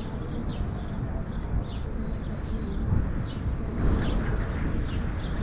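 Small birds chirping: short high notes that slide downward, repeated several times a second, over a steady low outdoor rumble.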